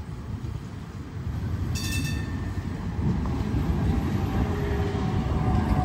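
A Bombardier CR4000 tram of London Tramlink approaching and passing close by, its wheel-on-rail rumble growing steadily louder. A short high ring sounds about two seconds in, and faint steady tones are heard near the end.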